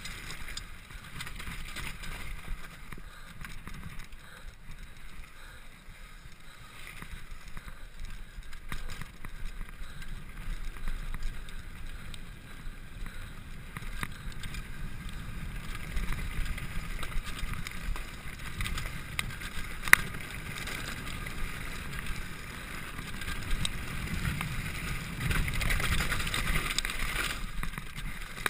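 Mountain bike running fast down a dirt and gravel trail: tyres rumbling over the ground and the bike rattling over bumps, with scattered clicks. A sharp knock stands out about twenty seconds in, and the rumble grows louder near the end.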